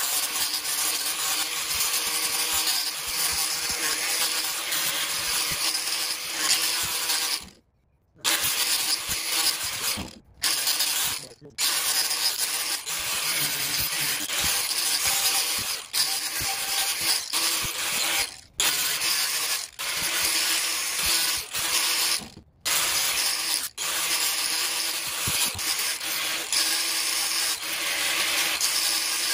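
DeWalt angle grinder with a sanding disc running against an ipe wood axe handle: a steady motor whine under a loud, rasping sanding noise. The sound breaks off abruptly for a moment several times.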